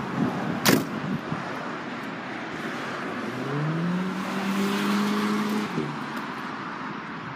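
Steady outdoor traffic noise. A sharp knock comes under a second in, and about three seconds in a car engine nearby rises in pitch as it accelerates, holds steady for a couple of seconds, then cuts off.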